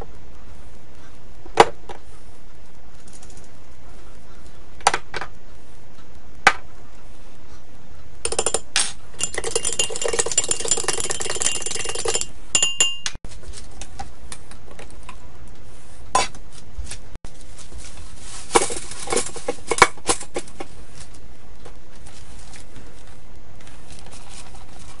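A metal spoon clinking and scraping against a glass measuring cup as a sauce is stirred, in a dense run of about four seconds, with single clinks and taps before and after it, over a steady hiss.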